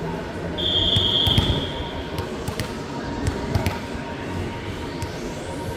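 Referee's whistle blown once in a single steady note lasting about a second and a half, followed by a few sharp thuds.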